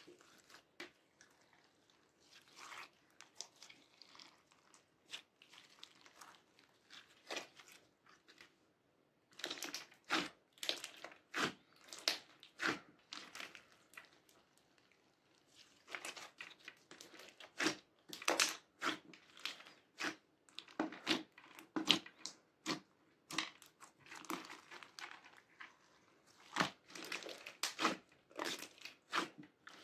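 Slime mixed with small round beads being squeezed, folded and stretched by hand: irregular wet squelches with crackly pops and crunches. The sounds are sparse for the first nine seconds or so, then come thicker and louder.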